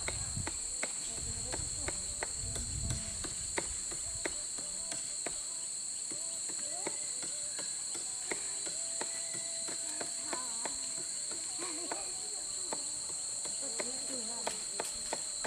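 Steady, high-pitched insect chorus, a constant shrill drone in two pitch bands, with scattered sharp clicks and taps.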